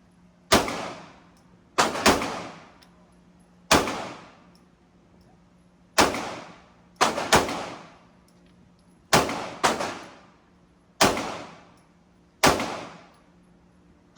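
Gunshots at a shooting range: about eleven sharp shots at irregular intervals, some in quick pairs, each followed by a short echoing tail.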